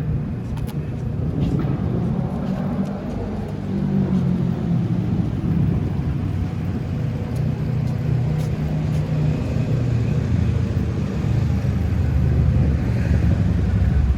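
Road traffic: a steady low rumble of vehicle engines, with a hum that wavers in pitch as vehicles move.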